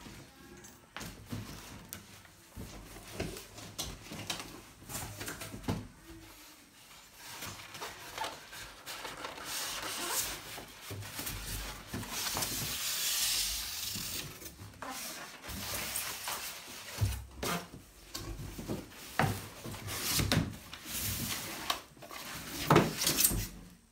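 A cardboard product box being opened and unpacked by hand: cardboard rubbing and scraping, with scattered knocks. A louder stretch of rustling comes midway, and a few sharp knocks come near the end.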